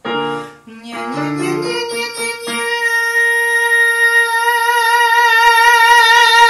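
Male singer holding one high note over a Yamaha digital piano, as a vocal exercise for strengthening high notes with a raised soft palate. A few piano notes and a rising run of notes open it. From about two seconds in he holds the note, and it grows louder as vibrato comes in partway through.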